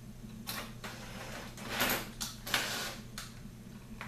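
Cordless drill-driver running in several short bursts as it drives screws into a TV's power supply board.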